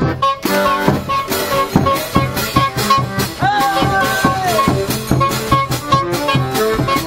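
One-man-band street music: accordion chords over a steady drum-and-cymbal beat played by the same performer, with one long held note about halfway through.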